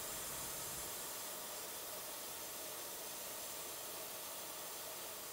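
A steady, even hiss that cuts off abruptly at the very end.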